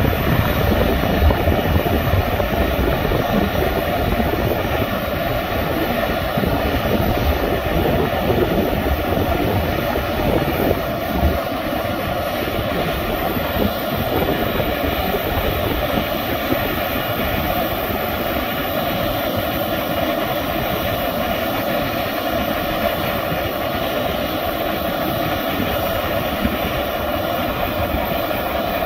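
Two F-35 fighters running on the ramp during start-up: a steady jet whine over a low rumble, the rumble heavier in the first dozen seconds.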